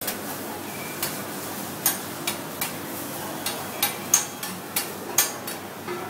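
Metal spatulas striking and chopping on a flat-top griddle: about a dozen sharp metallic clacks at an uneven pace.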